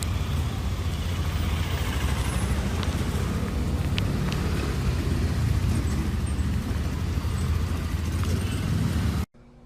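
Steady low rumble of a motor vehicle running, with a few faint clicks; it cuts off abruptly near the end.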